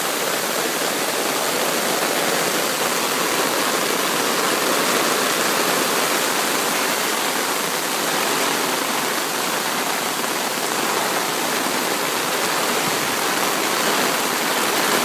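Storm runoff rushing steadily through a flooded roadside ditch, an even rush of moving water mixed with falling rain.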